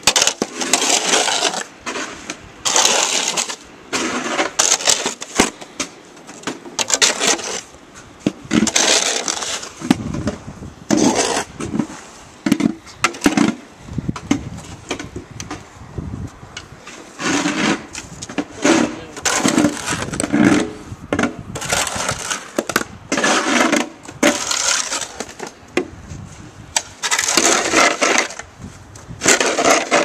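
Snow shovels, one with a metal blade and one with a plastic blade, scraping over packed snow and ice on a concrete sidewalk, stroke after stroke, a rasping scrape about every second or so.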